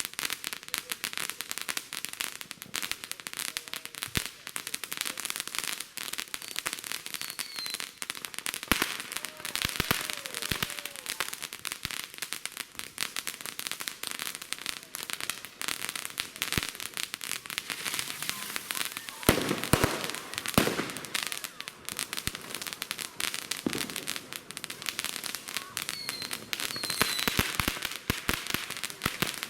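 Consumer fireworks crackling steadily: a dense run of small rapid crackles and pops, with louder clusters of pops about nine seconds in and again around twenty seconds in.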